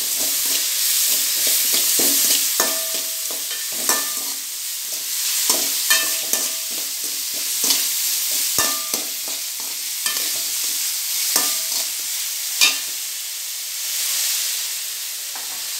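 Chopped vegetables sizzling in hot oil in a metal kadai while being stirred with a perforated metal spatula. The spatula scrapes and knocks against the pan at irregular intervals, about once a second, some knocks leaving the pan ringing briefly over the steady sizzle.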